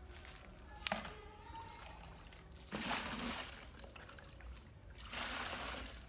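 Water poured from a hand scoop out of a bucket, two splashy pours about two seconds apart, after a single sharp click about a second in.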